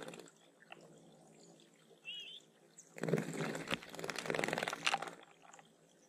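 Small birds splashing as they bathe in a shallow pond, in a burst of about two seconds starting halfway through, with a short bird call about two seconds in.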